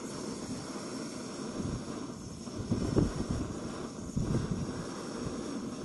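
MSR Pocket Rocket canister stove burning after ignition, a steady roaring hiss from the burner flame. A couple of low knocks about three and four seconds in as the pot is set down on the burner's supports.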